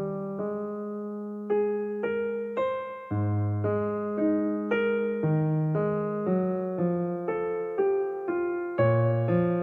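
Background music on a piano-like keyboard: gentle chords and a melody struck in an even rhythm, each note fading, over held bass notes.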